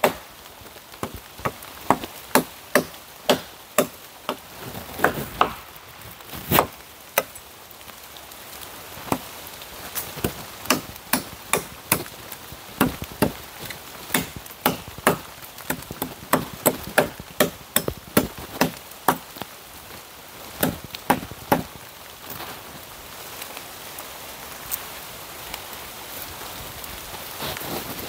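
Dry wood being chopped by hand with a blade, sharp strokes at an uneven pace of about two a second, over steady rain. The chopping stops about 22 seconds in, leaving mostly the rain.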